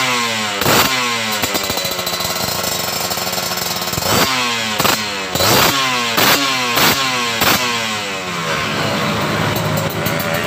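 Kawasaki Ninja RR's 150 cc two-stroke single-cylinder engine running, blipped repeatedly with the throttle. The revs jump and fall back each time: a couple of blips early, then a quick run of about six between about four and eight seconds in, before it settles. The engine has just been reassembled after a water pump seal replacement.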